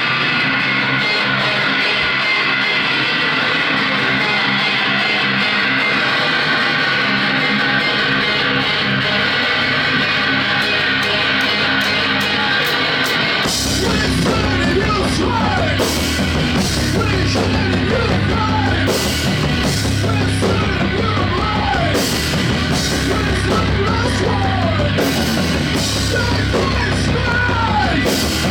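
A post-hardcore rock band playing live. For about the first half a distorted guitar rings on alone in a sustained drone; then drums and bass crash in and the full band plays a heavy, driving part.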